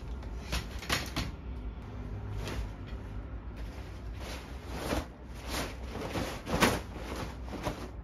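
Folding clothes-drying rack being handled and set up, its tubes and plastic hinge joints clacking and clicking about eight times. There is rustling of fabric as bed covers are thrown over it.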